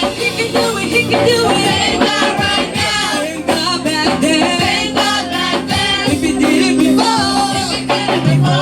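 Church praise and worship music: voices singing a lively song over instrumental backing with percussion.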